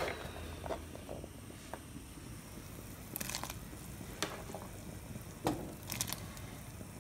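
Cut potato pieces being put into a pot of fish soup: a handful of separate soft knocks and plops, about a second apart, over a low steady background.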